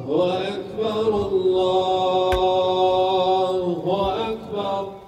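A man's voice chanting an Islamic religious recitation in long held notes that glide from pitch to pitch, with a short breath break near the end.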